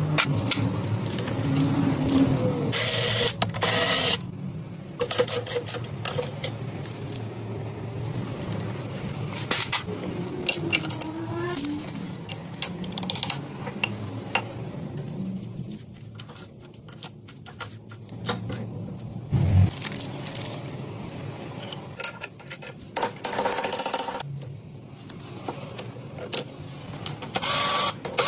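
Irregular clicking, tapping and scraping of metal parts, with sharp knocks scattered throughout and no steady running tone.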